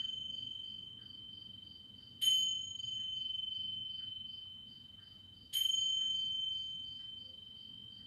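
Tingsha (small Tibetan hand cymbals) struck together twice, about three and a half seconds apart, each strike ringing with a clear high tone that slowly fades; the ring of an earlier strike is dying away at the start. The strikes mark the close of the meditation.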